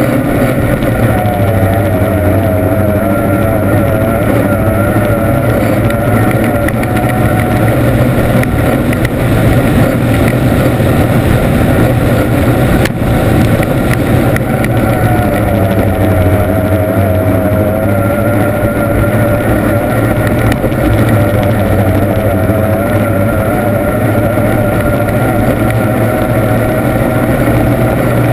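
Formula 1 racing powerboat's outboard engine running hard at sustained high revs, heard on board, its pitch wavering slightly as it runs. A single brief click about halfway through.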